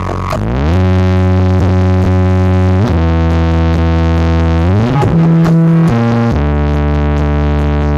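Synthesizer bass music played loud through a large sound-system rig during a sound check: long held low notes that slide to a new pitch about every one to two seconds.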